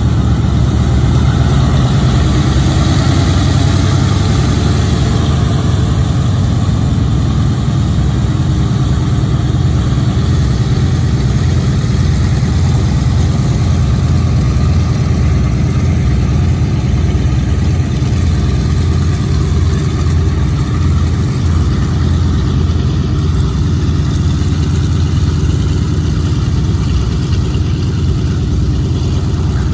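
Four Wright R-1820 Cyclone nine-cylinder radial engines of a Boeing B-17G Flying Fortress running at taxi power as the bomber taxis past, a steady low drone that eases slightly toward the end as it moves away.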